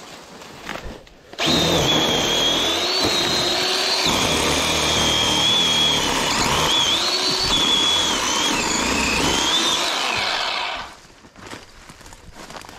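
Chainsaw running at full speed as it cuts through overgrown brush, starting about a second and a half in and stopping abruptly near the end. Its high whine wavers and dips several times as the chain loads up in the growth.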